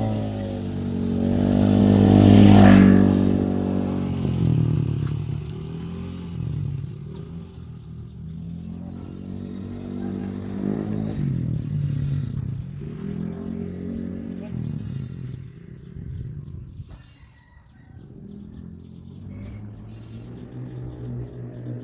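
A small engine running, its pitch rising and falling several times as the revs change, loudest about two to three seconds in and fading for a moment near the end.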